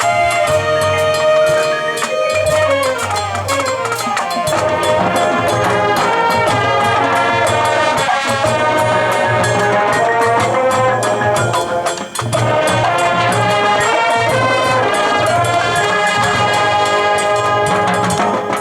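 High school marching band playing its field show: brass sections sounding sustained melodic lines over a steady low drum pulse.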